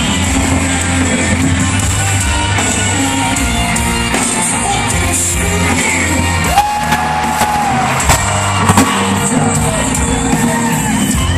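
Rock band playing loud live: drums, electric guitars and a singer.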